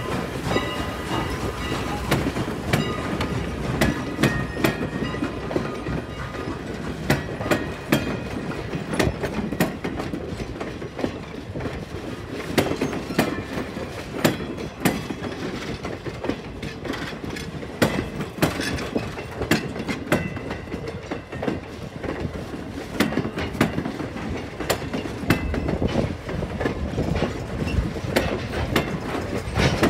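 Vintage passenger coaches rolling slowly past, their steel wheels clicking irregularly over rail joints above a steady rumble. A faint wheel squeal rings through the first several seconds.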